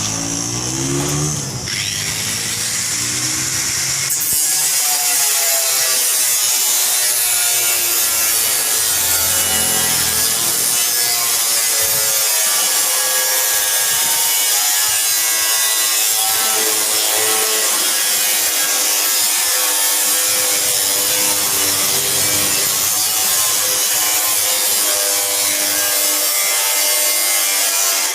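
Power tool working on the fender material, a loud continuous hiss with a wavering whine, starting about four seconds in.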